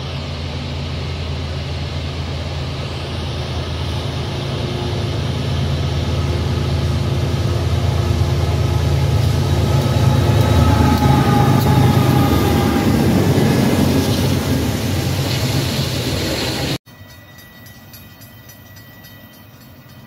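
A lash-up of BNSF diesel-electric freight locomotives approaching and passing, the deep engine drone and rail noise building to their loudest as the lead unit goes by. The sound cuts off abruptly near the end to a much quieter background.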